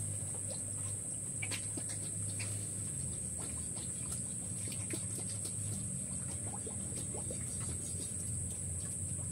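Animal-pen ambience: a steady high insect trill over a low steady hum, with scattered short chirps and small clicks.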